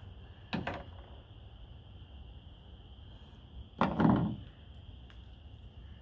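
Two dull knocks of hand tools being handled: a short one about half a second in and a louder one about four seconds in.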